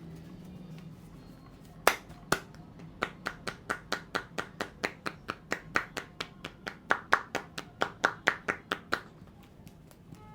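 Percussive massage strokes from a barber's hands, clapping sharply against the client: two loud slaps about two seconds in, then a quick even run of about four strikes a second lasting some six seconds.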